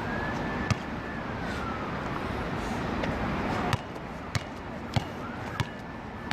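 A distant siren wailing, its tone rising and falling slowly twice, over steady outdoor background noise, with a few sharp knocks of a basketball bouncing on the court.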